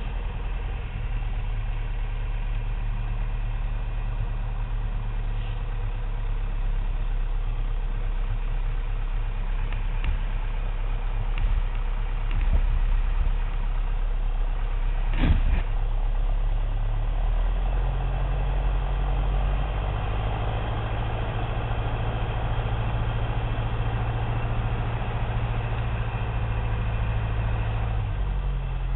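Piper Cherokee's propeller engine running steadily at low power, heard from inside the cabin. Its pitch steps up a little about two-thirds of the way through and drops back near the end. A single sharp click comes about halfway.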